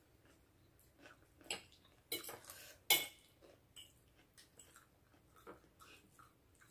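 Faint clinks and scrapes of cutlery against a plate while eating, with a few louder clatters about two to three seconds in.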